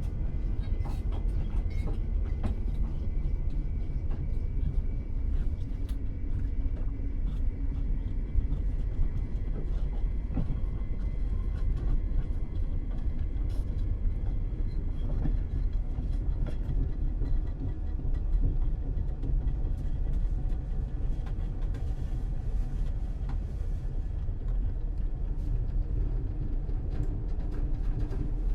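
Interior of a commuter train car in motion: a steady low rumble of wheels on the track, with scattered light clicks and rattles throughout.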